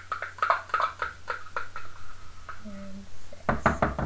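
A teaspoon tapping and scraping against the rim of a container as face cream is knocked off it: a quick run of light taps for about two seconds, then a few heavier knocks near the end. A short vocal sound comes in between.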